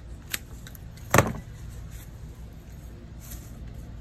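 Handling noise at a flower-arranging work table: a light click, then a sharp knock about a second in, over a steady low hum.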